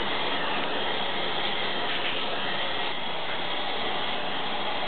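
Shower running steadily, water spraying down onto a dog and the shower's glass panel.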